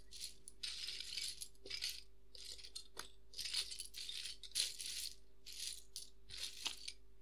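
A quick, irregular series of about a dozen dry rattling shakes, each under a second, over a faint steady hum.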